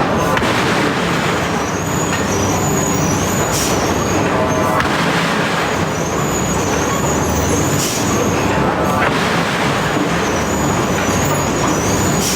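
Heavy machinery running steadily, a loud continuous mechanical din with faint brief hits every few seconds.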